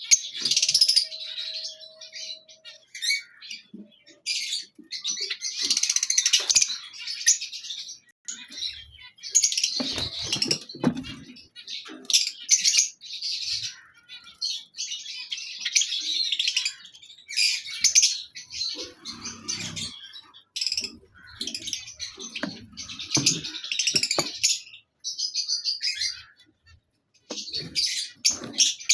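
Lovebirds chattering: shrill, overlapping chirps and squeaks coming in bursts every second or two, with a few lower rustles and knocks between them.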